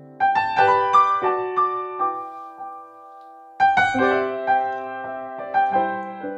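Background piano music: a gentle melody of struck, decaying notes in two phrases, with a short lull of about a second in the middle.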